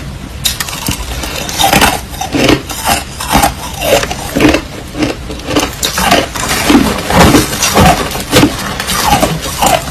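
Crushed ice being chewed close to the microphone: a steady run of crisp crunches, about one or two a second.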